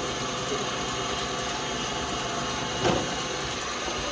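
Electric mixer running steadily while beating icing, with a brief louder knock about three seconds in.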